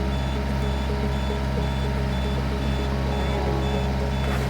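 A machine's engine running steadily while its backup warning beeper sounds a short, even beep about twice a second.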